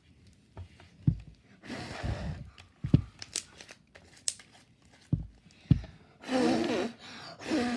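Slime being handled, stretched and squished by hand: sticky tearing and crackling noises with a few soft thumps, and a breathy sigh-like sound near the end.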